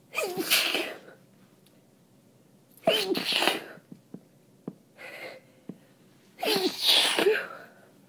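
Three wet sneezes from a person with a heavily congested nose, about three seconds apart, each a short loud burst.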